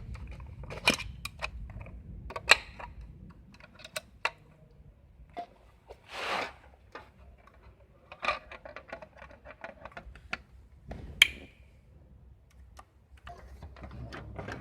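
Irregular sharp clicks and taps of small hard objects being handled during a bench repair of an LED driver, with a short rushing hiss about six seconds in.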